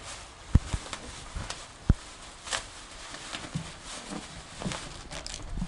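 German shorthaired pointer puppies play-fighting on a dog bed: scuffling and soft thumps of bodies and paws, the loudest about half a second and two seconds in, with crinkles from a black plastic trash bag they are tussling over.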